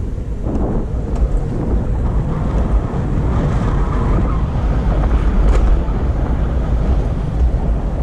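Wind buffeting the microphone over the low, steady rumble of a Backfire Ranger X2 all-terrain electric skateboard riding along.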